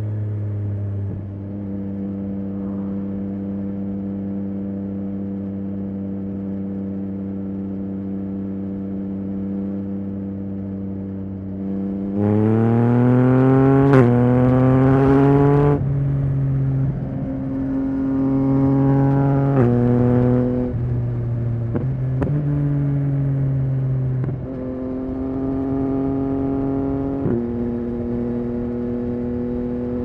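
2023 Yamaha XSR900's inline three-cylinder engine through a Spark aftermarket exhaust, cruising at a steady note, then pulling hard about twelve seconds in. The revs climb and fall off sharply at each upshift, then it settles back to a steady cruise.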